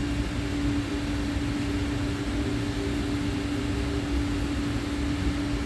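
A steady machine hum: one constant low tone over an even rumble and hiss, with no change.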